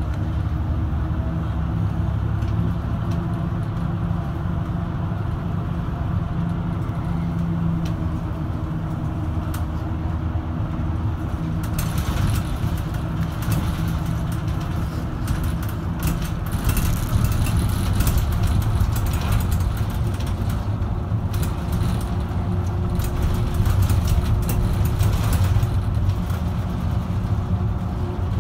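A bus's diesel engine running and road rumble, heard from inside the cabin while the bus drives along. The engine note changes about sixteen seconds in. From about twelve seconds in, frequent short knocks and rattles join it.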